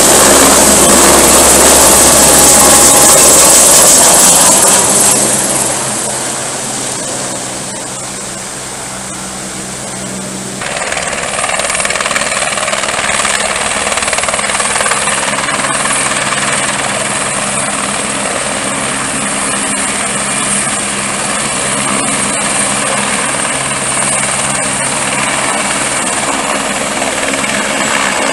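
Light turbine helicopter running close by: a steady high turbine whine over rotor noise. It fades for a few seconds about a quarter of the way in, then comes back up suddenly and holds steady as the helicopter hangs low over the river.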